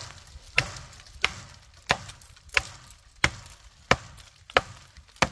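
Condor tomahawk chopping into the trunk of a small sapling: about nine sharp, evenly spaced blows, roughly three every two seconds.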